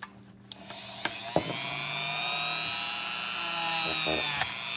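Electric rotary tool with a 400-grit sanding drum starting up with a high whine that rises as it spins up, then runs steadily while polishing freshly cut metal on a Glock trigger bar, with a few sharp clicks of part and tool.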